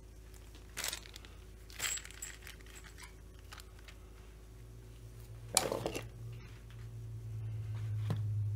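Small metal bolts clinking as they are set down on a workbench, a couple of sharp clinks early with one brighter ring, then a louder rustle of a plastic parts bag being handled and a last click. A low steady hum builds over the second half.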